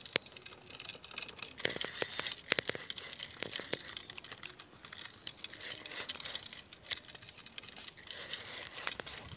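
Spinning reel clicking and rattling in irregular sharp ticks as line is wound in on a hooked fish.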